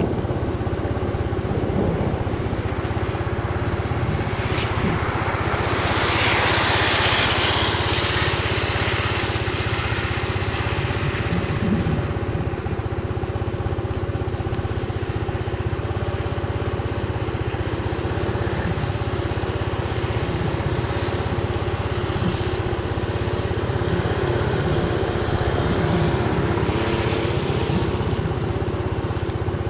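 Steady engine hum of nearby traffic, with a vehicle swelling past about six seconds in and again near the end.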